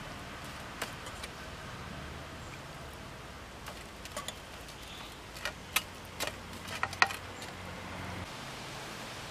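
Fingers mixing masala powder in a steel plate, giving scattered light clicks and taps of hand and metal on steel, several close together in the second half. Under them, a low steady hum stops near the end.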